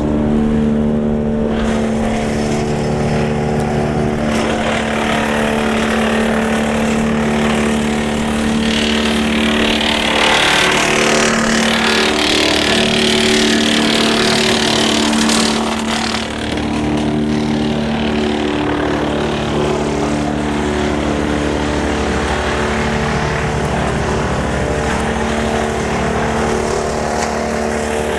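Tractor-driven Woodland Mills TF810 PRO PTO wood chipper running steadily, its engine and flywheel drone holding an even pitch. From about two seconds in until just past halfway, a louder rushing, grinding noise rises over the drone as small branches are fed through and chipped.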